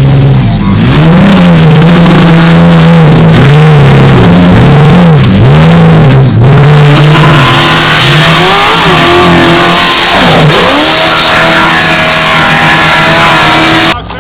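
Loud off-road race truck engines revving hard, their pitch swooping up and down over and over as the throttle is worked, then running higher and busier in the second half. Cuts off abruptly near the end.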